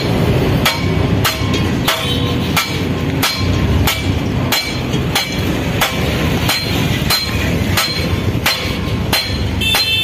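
Hammer blows on a steel rolling-shutter slat against a steel plate, struck in a steady rhythm of about three blows every two seconds, each with a short metallic ring, over a steady low rumble.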